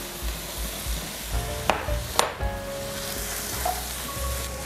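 Eggs, cabbage and cooked rice sizzling in a hot frying pan as a spatula stirs and breaks up the rice, with two sharp taps about two seconds in.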